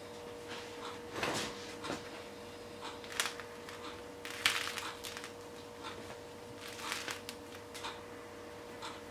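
Crust of a freshly baked loaf crackling as it is squeezed by hand: irregular crisp crackles, loudest about four and a half seconds in.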